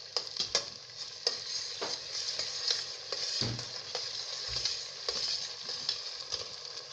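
Onion and tomato base sizzling in oil in a cooking pot while a spoon stirs it. Scattered clicks and a few dull knocks of the spoon against the pot.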